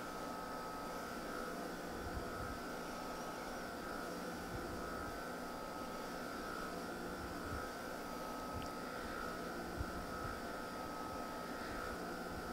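Steady background hum and hiss of room tone, with a constant mid-pitched whine running through it and a few faint, soft low thumps now and then.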